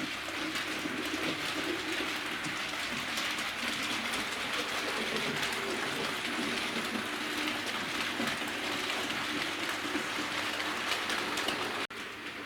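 OO gauge model trains running on the layout: a steady whir of motors and wheels with fine rapid clicking from the rail joints. The sound drops out for an instant near the end.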